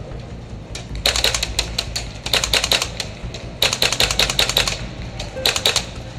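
Airsoft gunfire: four bursts of rapid full-auto shots, heard as fast, evenly spaced sharp clicks of about a dozen a second. The last burst is the shortest.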